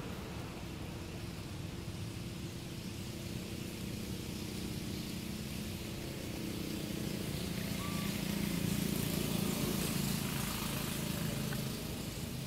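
A motor vehicle engine running as a steady low drone, growing louder about halfway through and fading again near the end.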